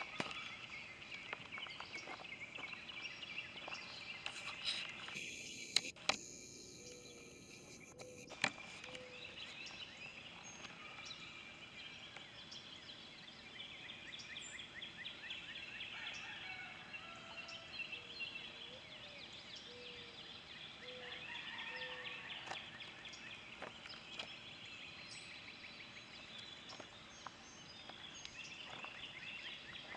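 Faint outdoor ambience of birds chirping and calling in a steady chorus, with a few short lower call notes and a couple of sharp clicks in the first several seconds.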